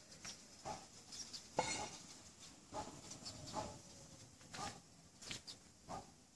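Faint, short animal calls repeated about once a second, one louder call about one and a half seconds in.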